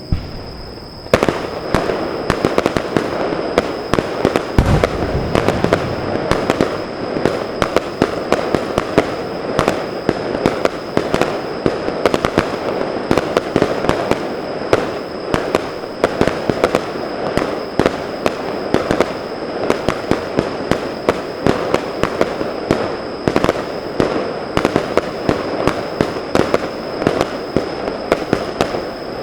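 Fireworks display: a dense, continuous crackle of many small sharp pops, starting about a second in, with one deep boom about five seconds in.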